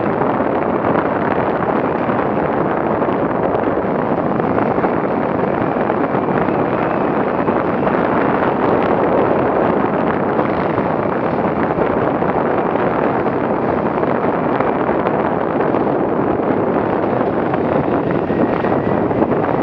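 Enduro motorcycle engine running steadily on a dirt trail, heard through a helmet-mounted action camera and largely buried under constant wind rush on the microphone.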